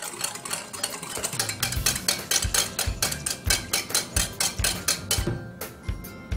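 Wire whisk beating a thin, frothy yeast-and-water mixture in a glass bowl: quick rattling strokes against the glass that stop about five seconds in. Background music with a steady beat.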